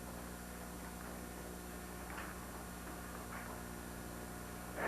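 Steady electrical hum with a stack of even tones, and two faint brief sounds about two and three and a half seconds in.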